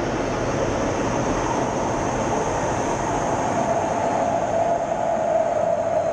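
F-16 fighter jet's engine and airflow heard from inside the cockpit during close formation flight: a steady rushing roar with a humming tone that slowly drops in pitch and grows a little louder over the last couple of seconds.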